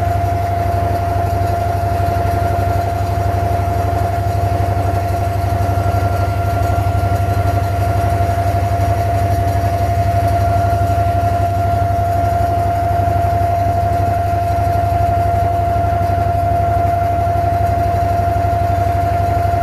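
Inboard diesel engine of a wooden abra water taxi running steadily under way: a constant low drone with a steady mid-pitched hum above it.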